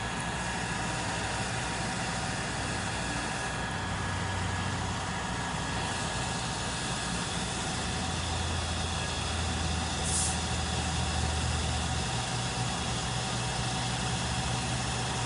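Engine of a fire department aerial-lift (bucket) truck running steadily, its low hum growing stronger for a few seconds past the middle. A brief hiss sounds about ten seconds in.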